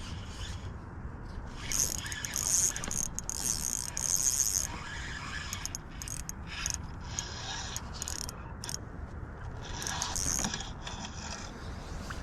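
Fishing reel being cranked in several short spells, a mechanical gear whir with pauses between.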